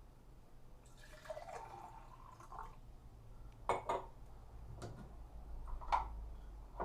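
Water pouring for a moment and dripping, then a few sharp clicks and knocks of a cup and containers being handled.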